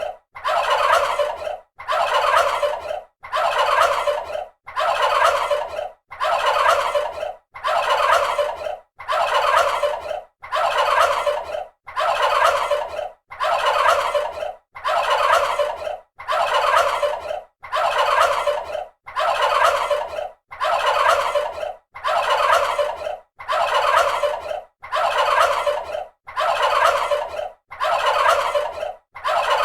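Turkey gobbling, the same gobble repeated over and over about every second and a half with short pauses between calls.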